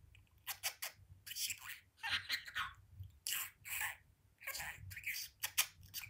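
Budgerigar talking: a string of short, raspy, high-pitched bursts of mimicked speech, about eight in a row.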